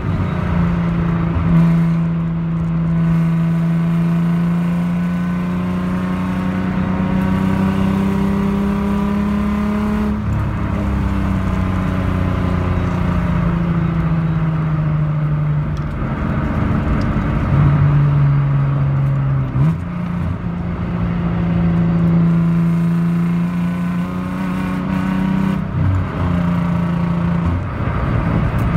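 Naturally aspirated VG30DE 3.0-litre V6 of a 1991 Nissan 300ZX, heard from inside the cabin, running under load on track. Its pitch climbs slowly, then drops or jumps abruptly several times with the gear changes and lifts through corners.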